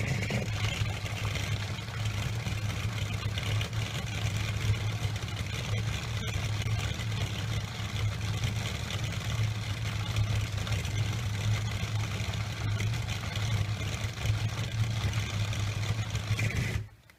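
Homemade mini blender's small electric motor running steadily with a low hum, its blade spinning in a cup of blended fruit; it cuts off about a second before the end.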